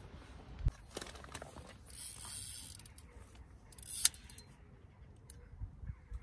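Ratcheting mechanical clicks of a fishing reel, with a few sharp knocks, the loudest about four seconds in.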